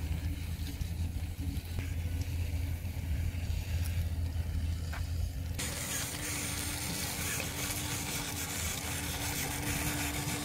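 Small 6–12 V DC gear motors running on a model bucket wheel excavator, with a low hum and a rattling of the drive and crawler tracks. About halfway through the sound changes abruptly to a hissier, even whir with a steady hum.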